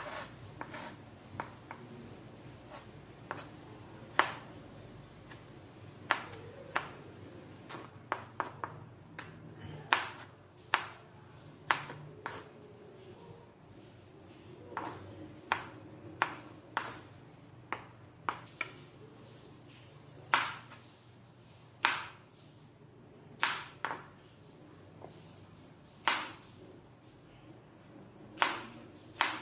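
Knife slicing tomatoes on a cutting board: irregular sharp knocks of the blade hitting the board, about one every second or two, some quicker pairs.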